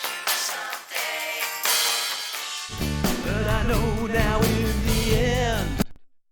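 A rock song mix playing back with drums, guitar and bass. For the first few seconds it has no deep low end; then about two and a half seconds in the deep bass comes in and a sung vocal line is heard. The playback stops abruptly about a second before the end.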